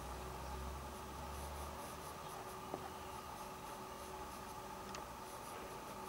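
A bristle brush scratching and rubbing oil paint onto a stretched canvas in short strokes, faint, over a steady electrical hum. Two light clicks about two-and-a-half seconds in and again near the end.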